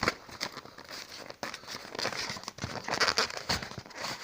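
Packaging crinkling and rustling as it is handled and pulled open, with a few light knocks and clicks scattered through.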